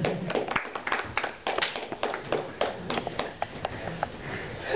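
A run of irregular sharp taps and clicks, several a second, with no steady rhythm.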